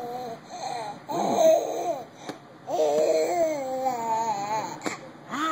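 A baby making drawn-out vocal sounds whose pitch wavers up and down, several in a row with short breaks between them.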